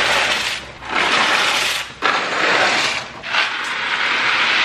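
Dry pasta pouring out of cardboard boxes into pots, a rushing rattle in about four pours with short breaks between.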